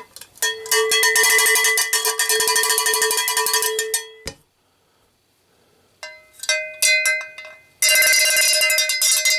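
Rock music with a prominent cowbell beating fast and steady over sustained guitar chords. It stops abruptly a little before halfway through, leaving about a second and a half of silence, then starts again.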